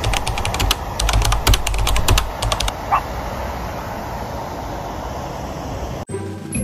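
Keyboard-typing sound effect: a quick, uneven run of about fifteen key clicks over the first two and a half seconds, laid over steady outdoor background noise with a low rumble.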